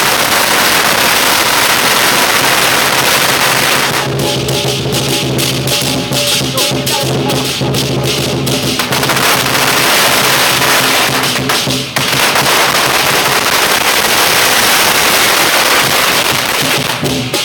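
Strings of firecrackers going off in a dense, continuous crackle, with sharper separate pops for a few seconds in the middle and again near the end. Lion dance drum and cymbals play underneath.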